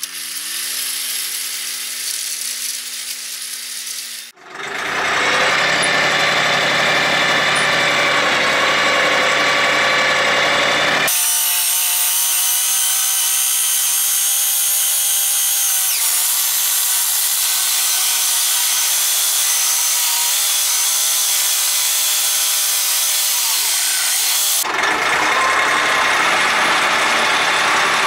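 Compact tractor engine running with its rear rotary tiller churning soil, a loud steady mechanical whine over the engine. The sound changes abruptly several times, about four, eleven and twenty-five seconds in, and the engine's pitch dips briefly a couple of times as it takes load.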